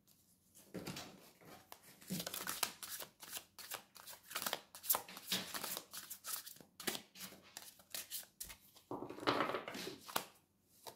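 A deck of tarot cards being shuffled and handled, a quick run of papery flicks and slaps with a thicker burst near the end.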